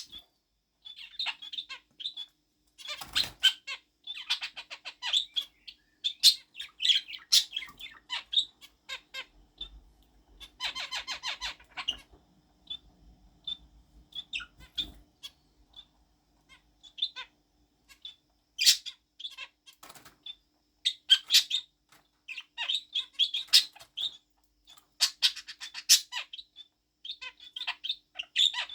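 A budgerigar mimicking finch calls: short honks and beeps in quick runs of high chirps, broken by pauses of a second or two.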